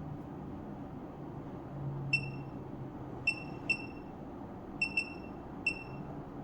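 Six short, high electronic beeps of the same pitch, irregularly spaced as if from button presses on a piece of test equipment, over a steady low hum.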